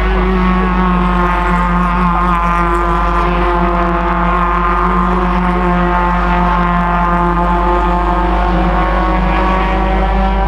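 Ford Fiesta race cars' engines running hard as a pack circulates the track, a steady multi-toned engine drone whose pitch drifts slightly up and down.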